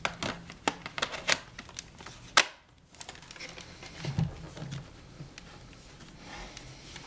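Plastic clicks and knocks of a laptop battery being fitted into an HP Pavilion dv3500, ending in one sharp click about two and a half seconds in as it latches, then quieter handling.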